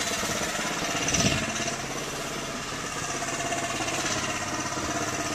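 An engine running steadily, with a brief louder swell about a second in.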